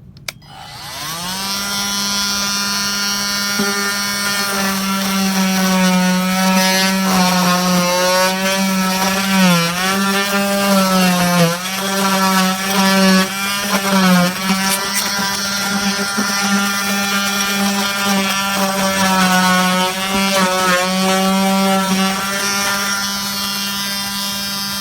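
KIMO 20V cordless oscillating multi-tool running and cutting into ceiling sheetrock: a steady buzzing whine that spins up in the first second or two. Its pitch dips briefly several times as the blade bites, and it stops abruptly at the end.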